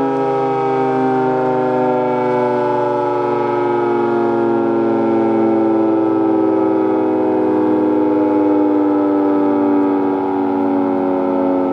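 Federal Signal 2T22 dual-tone (10/12-port) outdoor warning siren sounding a loud, steady alert. Its discordant chord slides slowly down in pitch.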